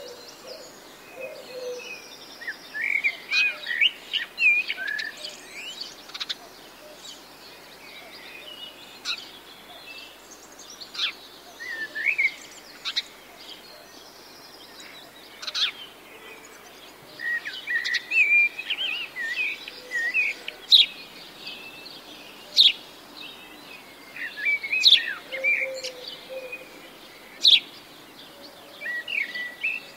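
Birds chirping and trilling in short bursts every few seconds, with sharp, loud clicks among them.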